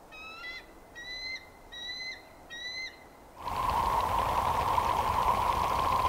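Bald eagle calling: four high, thin whistled piping notes, each falling slightly at its end. About three seconds in this gives way to a much louder steady rushing noise with a droning band running through it, heard over a raft of surf scoters on open water.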